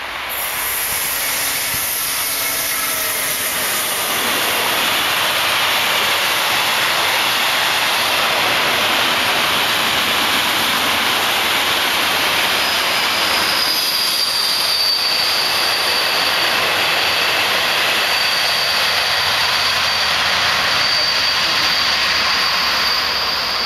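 A DB class 152 electric locomotive passes close by, pulling a long freight train whose wagons then rumble and clatter past. From about halfway through, a high, steady wheel squeal rides over the rolling noise.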